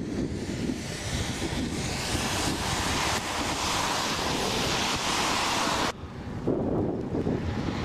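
Storm wind buffeting the microphone: low, irregular gusty rumbles under a steady rushing hiss. About six seconds in the hiss cuts off abruptly, leaving only the low gusting rumble.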